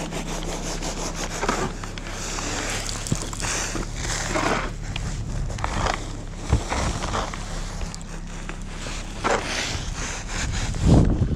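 Snow shovel scraping and scooping snow in repeated strokes, roughly one a second, over a steady low hum.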